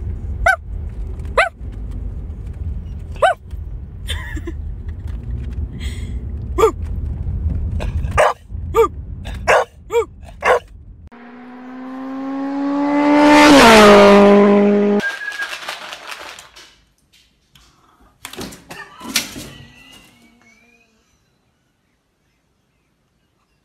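A dog barking in short, sharp barks, about a dozen over ten seconds, over the steady low rumble of a moving car's interior. Then a loud drawn-out pitched sound swells over a few seconds, slides down in pitch and cuts off, followed by a few faint clicks and a short rising chirp.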